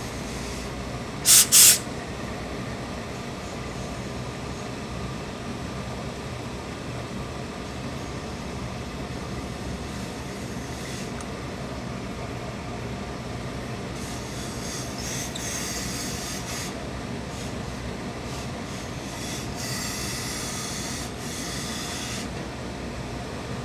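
Hose-fed industrial steam iron giving two short, loud blasts of steam about a second and a half in, then longer, softer stretches of steam hissing later on as it presses a suit jacket hem. A steady low hum lies underneath.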